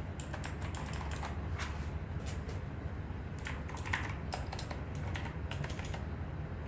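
Cooler Master CK530 V2 mechanical keyboard with red linear switches being typed on: a quick, irregular run of key clacks over a steady low hum.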